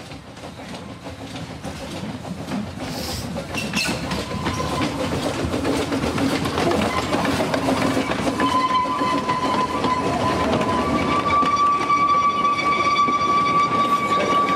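Narrow-gauge steam train approaching and passing close by, growing steadily louder, its wheels clicking over the rail joints. From about halfway through, a steady high-pitched tone sounds and holds, stepping slightly up in pitch near the end.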